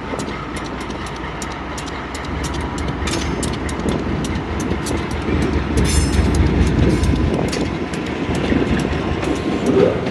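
Train passing on the rails, its wheels clicking over rail joints in a quick, uneven run of sharp clicks over a steady rumble.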